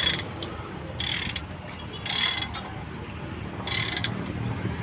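Ratchet wrench working the bolts of a truck's brake backing plate, clicking in four short bursts.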